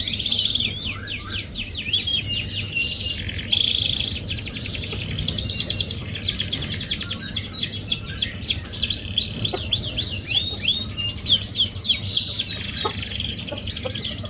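Domestic canary singing continuously in long fast trills of rapidly repeated downward-sweeping notes, broken by a few short held whistles, over a faint low hum.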